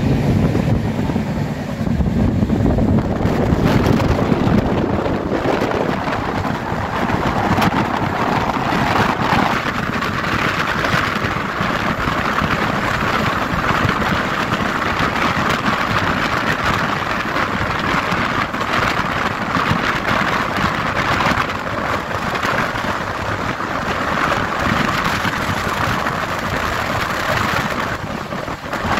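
Passenger train running at high speed, heard from an open coach doorway: a steady, loud rush of wind and wheel-on-rail noise with many small clicks.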